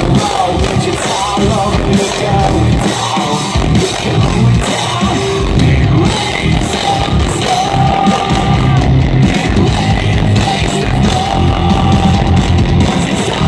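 Rock band playing live: electric guitar, bass guitar and drum kit, loud and continuous.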